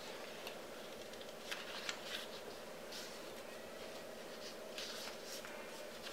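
Faint rustles and soft crinkles of a sheet of paper being folded and creased flat by hand into a paper boat, a handful of scattered light ticks over a faint steady hum.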